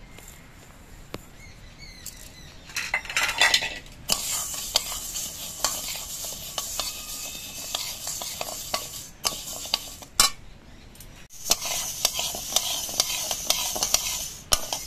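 Metal spatula stirring and scraping split moong dal as it dry-roasts in a metal kadai: the lentil grains rustle and scrape across the pan, with frequent clinks of the spatula against the metal. It starts about four seconds in and breaks off briefly near eleven seconds before going on.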